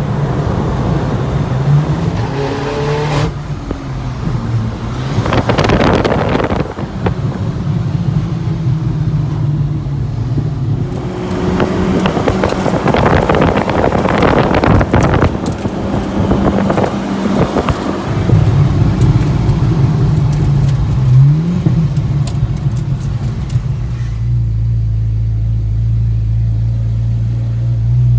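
Zenvo TSR-S hypercar's V8 engine revving and accelerating, its pitch rising and dropping several times with louder surges, then settling into a steady low drone near the end.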